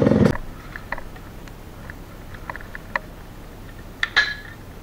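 Yamaha RXZ two-stroke single-cylinder engine running, then cutting off abruptly about a third of a second in. Faint clicks and taps follow, with a sharper metallic clink about four seconds in.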